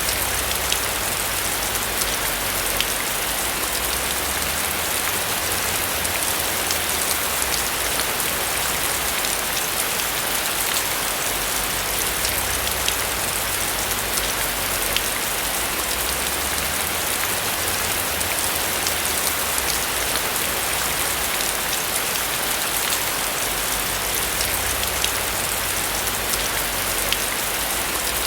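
Steady rain falling on a roof: an even hiss of rain with scattered individual drop ticks and a low rumble underneath.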